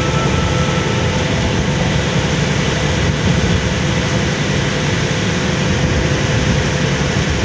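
Strong wind buffeting the microphone over the steady drone of a boat under way, with a faint constant engine tone beneath.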